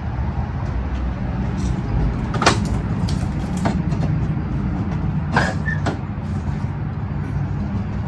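A steady low mechanical rumble, like an engine running, with a few sharp clicks or knocks over it.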